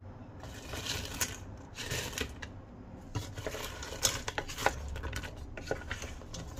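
A wooden spoon tossing crispy battered fried chicken pieces through thick sticky sauce in a stainless steel pot: irregular clicks and short scrapes of the spoon against the metal and the crunchy pieces.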